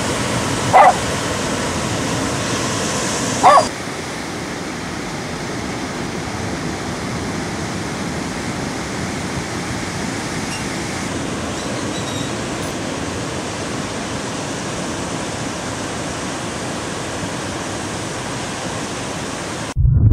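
Steady rushing noise of ocean surf breaking, with a dog barking three times in the first four seconds. The surf sound cuts off abruptly near the end.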